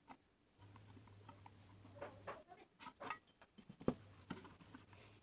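Faint strokes of a permanent marker drawing lines on a galvanised steel box section, with a steel try square shifted on the metal and a sharp tap about four seconds in.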